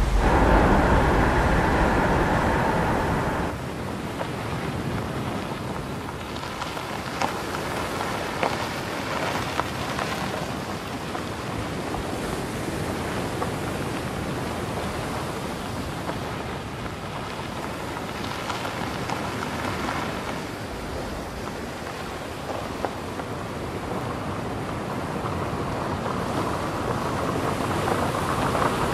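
A car driving by with road and wind rumble, louder for the first three and a half seconds and then cut off abruptly. A quieter, steady crackling hiss follows and swells again near the end.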